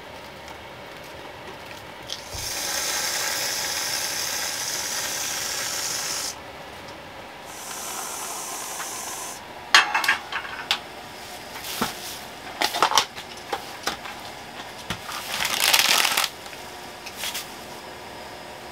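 Cookware being handled on a portable butane camp stove. A steady hiss runs for about four seconds, then a shorter, quieter one; after that come sharp knocks and clatter as a nonstick frying pan is set on the stove's metal grate and moved about, with a short loud rush near the end.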